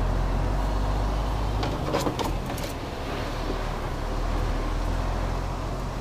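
Lorry's diesel engine running steadily while the truck creeps slowly forward, heard from inside the cab, with a few short clicks about two seconds in.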